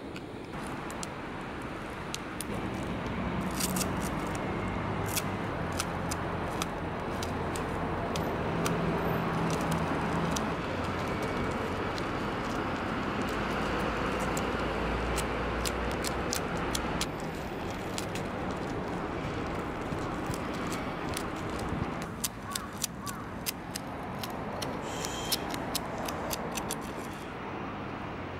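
Street traffic noise with a vehicle engine humming, overlaid by scattered sharp clicks and light scraping from hands working at a concrete edge.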